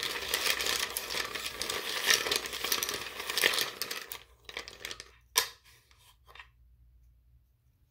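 Rune pieces being mixed by hand: a dense rattle of small hard pieces clicking against each other for about four seconds, then a few separate clicks, the sharpest about five and a half seconds in, as one is drawn.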